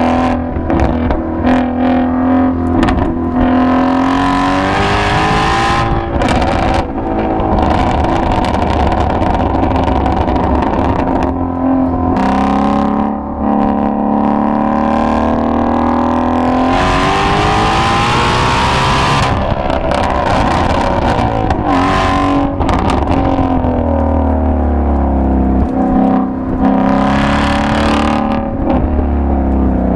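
Ford Mustang Shelby GT350's 5.2-litre flat-plane-crank V8 running hard on the road, its revs climbing and falling repeatedly through gear changes, with one long climb about two-thirds of the way in. Short sharp pops break in at several points as the revs drop.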